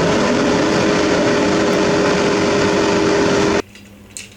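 Steady engine-like running noise with a constant hum that cuts off suddenly near the end.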